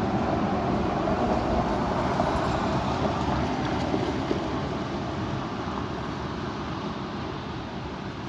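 Strong wind rushing and buffeting the microphone, dying down over the last few seconds.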